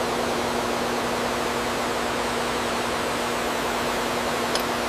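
Steady workshop room tone: an even hiss with a low steady hum running under it.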